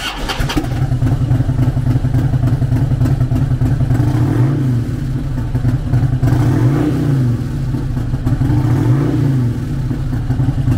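Harley-Davidson Street Bob trike's 88 cubic inch V-twin running at idle, revved briefly three times with the throttle, at about four and a half, seven and nine seconds in.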